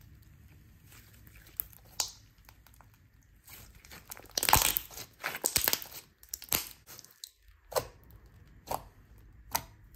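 Thick clear glue-and-borax slime worked by hand: faint crackles as it is stretched, then a loud burst of crackling and squelching about four seconds in as it is squeezed into a ball, followed by single sharp pops about once a second as fingers press and poke it on the table.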